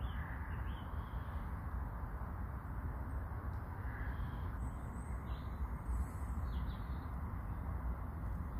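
A steady low rumble, with a few short, faint bird calls scattered through it.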